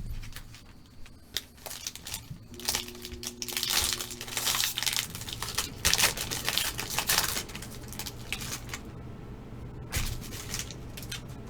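Foil trading-card pack wrapper being torn open and crinkled, a dense crackling for several seconds that thins out in the second half.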